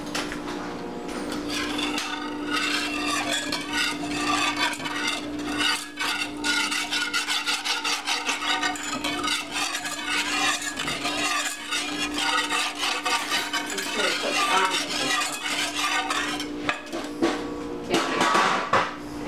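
Rapid, continuous stirring of a milk mixture in a metal saucepan on the stove, the utensil scraping round the pan. The mixture is stirred constantly while it heats and thickens.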